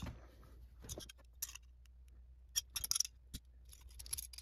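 Light, irregular metallic clicks and scrapes as small Phillips screws are worked out of a PCIe card's sheet-metal bracket, with a cluster of clicks about three seconds in.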